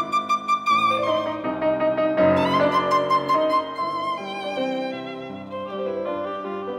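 Background music: a violin melody over a light piano accompaniment.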